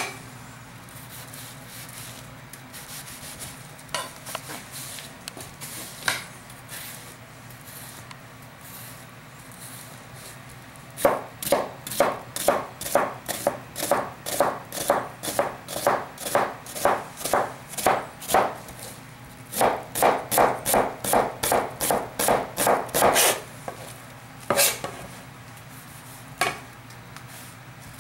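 Chinese cleaver dicing half an onion on a plastic cutting board: a few scattered cuts at first, then two fast runs of chopping at about three strokes a second with a short break between, and two single chops near the end.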